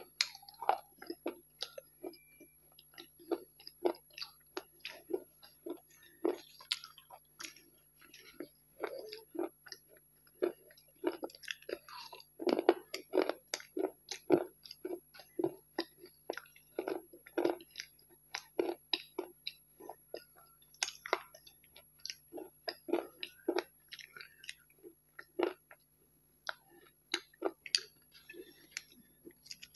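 Close-miked chewing and crunching of hard grey chunks in the mouth: irregular crisp crunches several times a second, with a brief pause about 25 seconds in.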